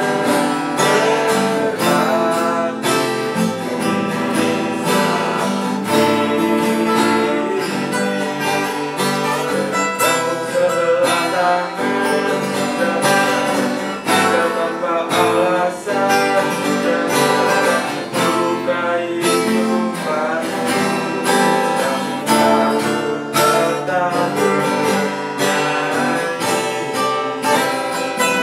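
Two acoustic guitars played together, strumming chords in a steady rhythm.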